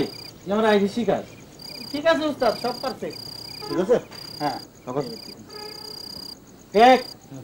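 Crickets chirping in long, high, steady trills that stop and start, broken every second or so by short pitched calls that rise and fall, the loudest near the end.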